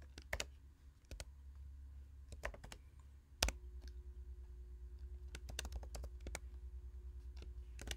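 Keystrokes on a computer keyboard, typed in short irregular runs with pauses between them, with one sharper keystroke about three and a half seconds in, over a faint low hum.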